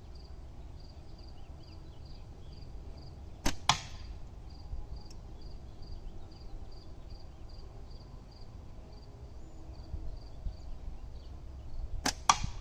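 Two slingshot shots with flat latex bands: each is a sharp snap as the bands are released, followed a split second later by a second sharp crack, one about three and a half seconds in and one near the end. Insects chirp steadily and faintly in the background, about two chirps a second.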